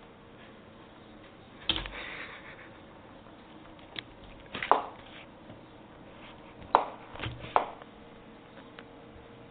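Handling knocks and scuffs from a camera being batted and tugged by a cat pawing at its cord, with about six irregular bumps, the loudest near 2 s and 7 s, over a faint steady hum.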